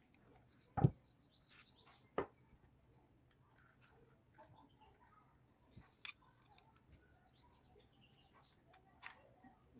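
Scattered small metal clicks and taps of a screwdriver, nuts and washers being handled on a soldering iron's barrel, with one louder knock about a second in and a few sharper clicks later.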